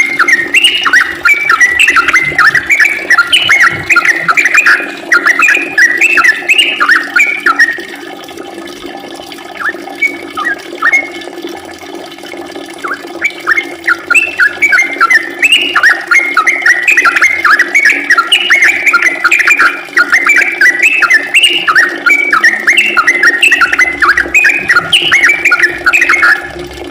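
Yellow-vented bulbul (trucukan) singing in long, rapid rolling phrases of bubbly, chattering notes. The bird breaks into sparser notes for several seconds midway, then resumes the full run, over a steady low hum.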